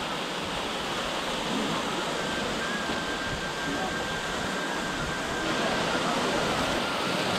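Waterfall: water pouring and splashing down a stepped rock face in a steady, unbroken rush.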